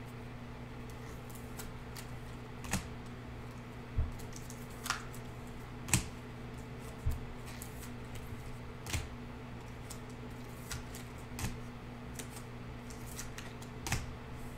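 Panini Prizm basketball cards and clear plastic card holders being handled, giving scattered light clicks and taps every second or two over a steady low hum.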